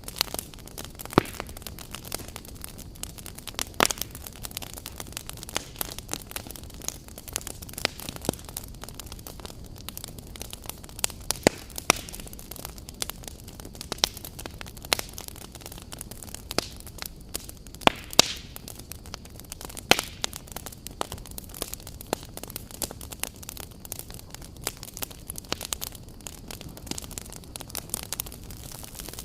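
Wood campfire burning: a steady low hiss with irregular sharp crackles and pops from the burning logs, a few of them louder.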